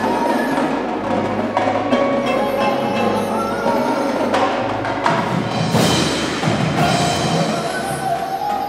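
Indoor winter percussion ensemble playing: marimbas and vibraphones ring out held, layered chords over drums, with a crash about six seconds in.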